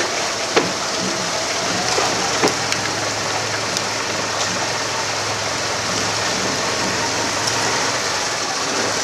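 Canal water rushing and splashing past a moving boat, a steady hiss of wash, with a low steady motor hum from about three seconds in until near the end and a couple of sharp knocks early.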